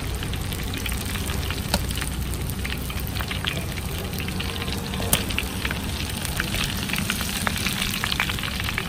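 Batter-coated enoki mushrooms deep-frying in hot oil: a steady sizzle full of small crackling pops.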